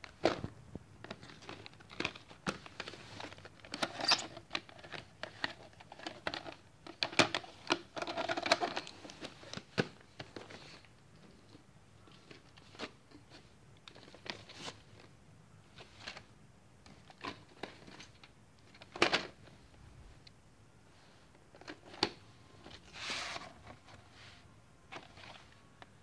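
VHS tapes in plastic clamshell cases and cardboard sleeves being handled: scattered clicks, taps and rustling, busiest in the first ten seconds, with a few sharper knocks later on.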